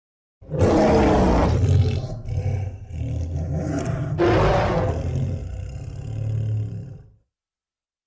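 Kaiju roar sound effect: one long, rough roar starting about half a second in, easing off, then surging loud again about four seconds in before dying away about a second before the end.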